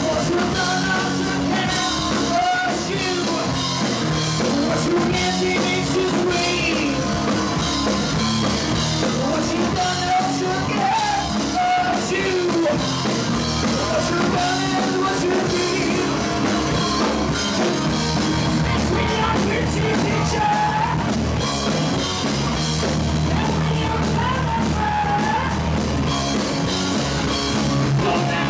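Live rock band playing loudly: electric guitars, bass and drum kit, with a male lead singer singing over them.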